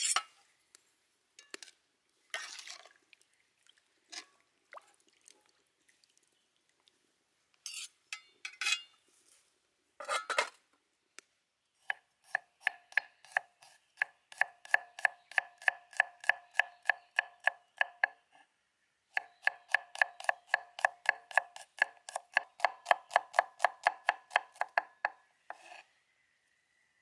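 Chef's knife rapidly slicing garlic cloves on a wooden chopping board: two long runs of quick, even knocks, about five a second, each with a short ring from the blade. Before them come a few scattered knocks and rustles of handling.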